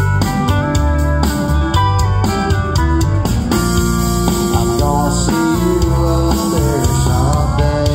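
Live country-rock band playing an instrumental passage: electric guitar lead over bass and drums. The drums drop out about halfway through, leaving held guitar and bass notes.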